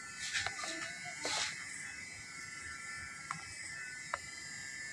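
Electric hair clipper buzzing steadily, with a few faint clicks and rustles.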